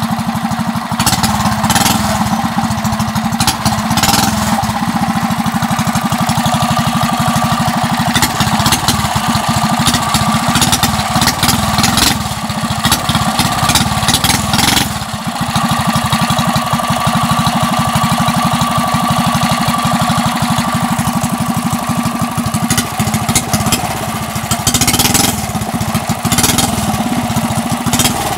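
Coleman CT100U mini bike's small single-cylinder engine running through an aftermarket header pipe and open pod air filter, revved up now and then on the throttle and settling back.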